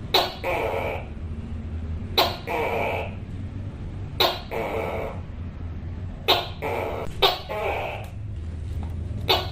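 Tokay gecko repeating its two-part "to-kay" call, six calls about two seconds apart, with one coming sooner near the middle. Each call is a sharp clicking onset followed by a short croaking note.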